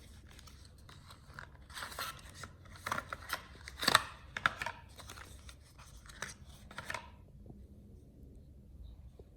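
Small objects being handled: irregular clicks, scrapes and rustles, loudest about four seconds in, stopping about seven seconds in.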